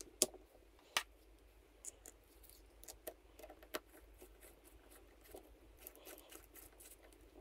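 Two sharp metal clicks, about a second apart, as the axle plate is set onto a Rohloff Speedhub, then faint small clicks and scrapes of a screwdriver turning the plate's small screws.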